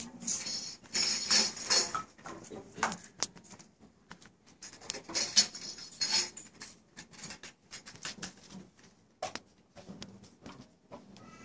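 Jingling of a riq's small cymbals and clattering as the instrument is handled rather than played in rhythm, in two spells near the start and about five seconds in, then only scattered light knocks.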